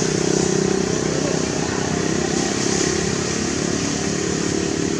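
A small engine running steadily, an even drone with a continuous hiss above it.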